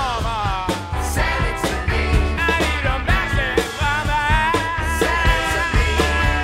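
Rock band playing: a lead line that bends in pitch over steady bass and regular drum beats.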